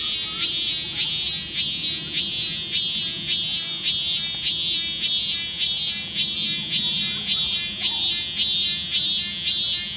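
Robust cicada (minmin-zemi, Hyalessa maculaticollis) singing its repeated "meen-meen" call, a steady, even run of rhythmic notes at about two a second.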